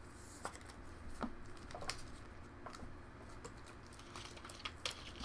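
A few faint, irregular light clicks and taps, spaced about half a second to a second apart, over a low steady hum.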